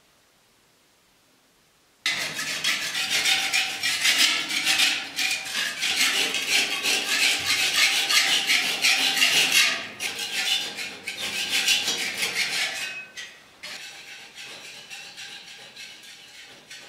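A metal paint scraper rasping old paint off plastered walls and ceiling in quick, continuous strokes. It starts suddenly about two seconds in, after near silence, and gets quieter after about thirteen seconds.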